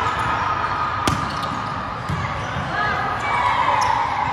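Volleyball being struck by hands in a large gym hall: one sharp smack about a second in and a few fainter hits, with players' voices around them.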